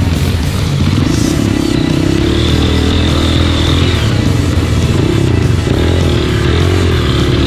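Dirt bike engine running with the revs rising and falling, under background music.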